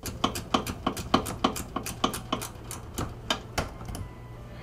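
Hand ratchet with a 7 mm socket clicking in a steady run, about four clicks a second, as it works a fender bolt loose; the clicking stops near the end.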